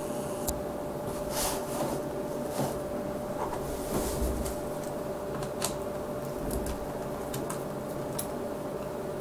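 Scattered light clicks and knocks of a screwdriver and small tools being handled and readied, over a steady hum.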